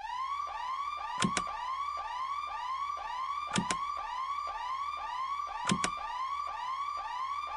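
A repeating siren-like electronic tone that rises quickly and levels off, about twice a second, with pairs of sharp clicks three times.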